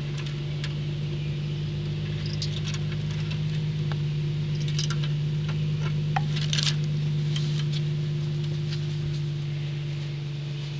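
Steady low mechanical hum, like an engine running, with scattered light clicks and rustles on top.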